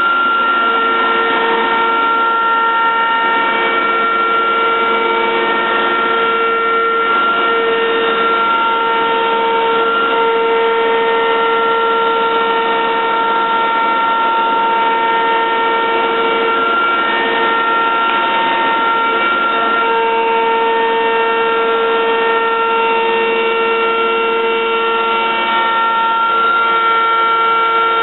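Techno Isel CNC router's spindle running under load as it cuts MDF, a loud steady whine of several tones over a rushing noise. The lowest tone drops out briefly a few times.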